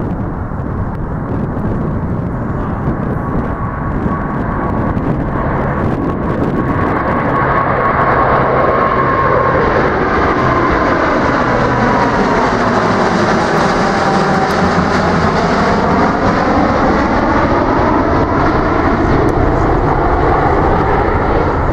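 Boeing 747-8 freighter's four GE GEnx-2B turbofans at takeoff thrust as it lifts off and climbs out: a loud, steady jet rumble that grows over the first several seconds. A whine in it drops in pitch about ten to fourteen seconds in as the aircraft passes, with a sweeping, phasing tone.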